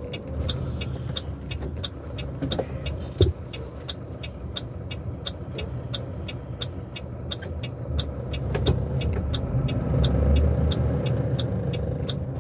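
Truck engine running, heard from inside the cab, with the turn-signal indicator ticking steadily about three times a second. A single sharp knock about three seconds in. The engine grows louder in the last few seconds as it pulls harder.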